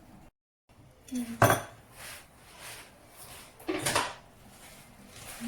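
Kitchen utensils and dishes clinking and knocking as meat is handled for marinating, with two louder knocks about a second and a half and about four seconds in.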